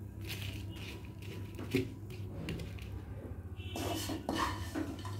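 Sticky sugar-syrup mixture of roasted makhana, coconut and dry fruits being scraped out onto a steel plate: soft scrapes and squishes, a sharp clink a little under two seconds in, and denser scraping around four seconds in, over a steady low hum.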